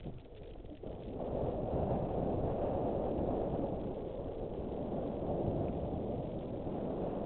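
Wind rushing over the microphone of a helmet camera on a mountain bike descending a dirt fire road at speed, mixed with tyre noise on the dirt. It grows louder about a second in as the bike gathers speed, then holds steady.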